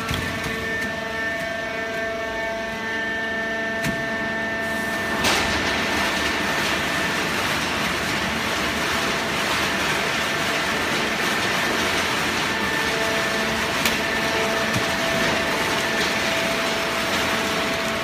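Conveyor-fed horizontal paper baler running: a steady machine drone with a few held tones. From about five seconds in it turns into a louder, even rushing noise.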